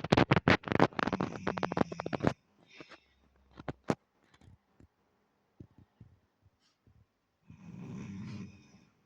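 A man snoring loudly: a long, rattling snore for the first two seconds or so, then a few faint clicks and a softer breath near the end.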